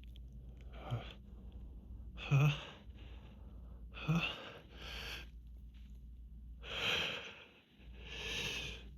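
A person with grass-pollen hay fever breathing in short, wheezy gasps and sniffs, about six of them, two with a brief voiced catch. This is the build-up to an allergic sneeze.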